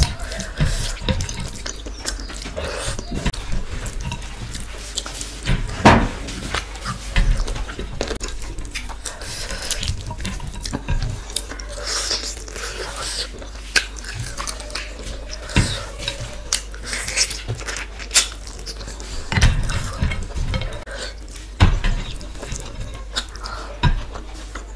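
Close-up eating sounds of rice eaten by hand: fingers mixing and scraping rice on a plate, and a mouthful being chewed, with irregular sharp clicks throughout.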